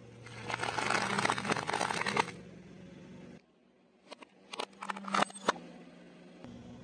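Car tyre rolling over a row of cellophane-wrapped hard-candy swirl lollipops: about two seconds of dense crackling and crunching of candy and wrapper. After a short break, a few sharp separate cracks.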